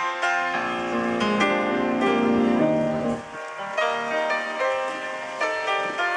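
Piano music: a run of notes over lower sustained notes for about three seconds, then the bass falls away and higher, lighter notes go on.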